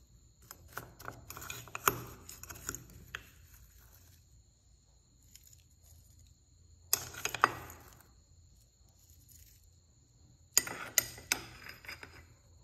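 A metal spoon clinking and scraping against ceramic bowls and a plate in three short bursts, as a crispy fried topping and then chopped herbs are scooped and sprinkled onto a dish.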